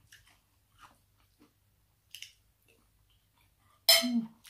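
A person eating rice noodles in curry: soft chewing and small mouth and spoon clicks, with one louder, sharp noise near the end.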